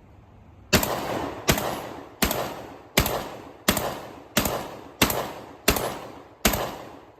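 JTS AR-style semi-automatic 12-gauge shotgun fired in rapid succession from a 10-round magazine: nine shots about three-quarters of a second apart, with a tenth at the very end, each ringing out briefly.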